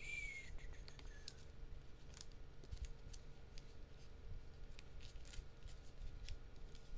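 Trading cards being handled and sorted: scattered soft clicks and slides of card stock, with a short squeak gliding downward in the first second.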